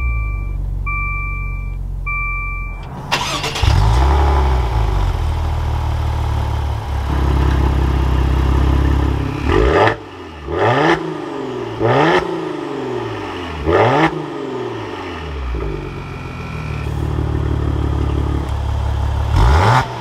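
Three short dashboard chimes, then the 2021 Maserati Levante S Q4's 3.0-litre twin-turbo V6 fires with a brief flare about three and a half seconds in and settles into a steady idle. From about ten seconds in, four quick throttle blips at the quad exhaust, each rising and falling in pitch, with one more blip near the end.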